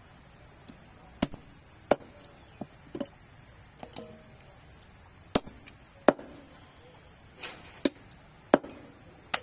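A long machete-like blade chopping raw chicken pieces on a chopping block: a dozen or so sharp chops at an uneven pace, roughly one a second.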